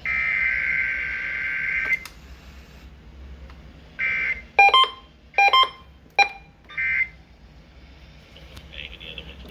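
Emergency Alert System SAME data signal received over the radio, a two-tone digital burst: one long burst at the start and two short ones later. Three sharp electronic beeps come between the short bursts, a little before the middle.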